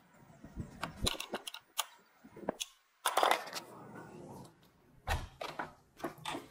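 Clicks and knocks of an aluminium window sash and its hardware being handled, with a louder clatter just after three seconds in as the sash is swung open and another knock about five seconds in.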